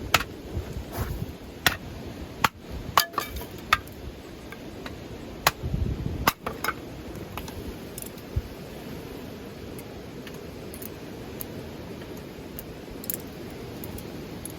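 A run of sharp clinks and knocks of small hard objects being handled, about a dozen in the first seven seconds, over a steady low rush of wind.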